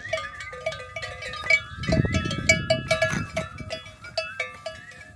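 Cattle bells clanking in quick, uneven repeats as livestock move, with a stretch of low noise about two seconds in.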